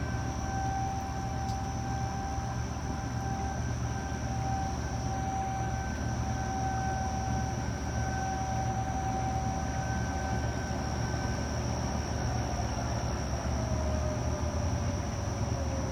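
Outdoor tornado warning siren holding a steady wail that swells and fades every few seconds as it rotates. About twelve seconds in it begins winding down, its pitch sliding slowly lower. A steady low rumble runs beneath it.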